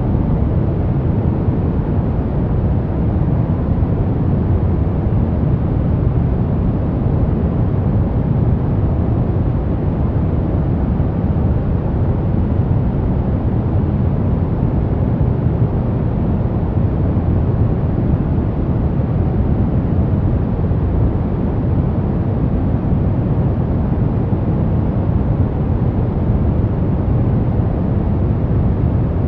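Continuous sleep-aid noise, deep and muffled rather than hissy: an even rushing sound weighted toward the bass, with no rhythm, tones or breaks.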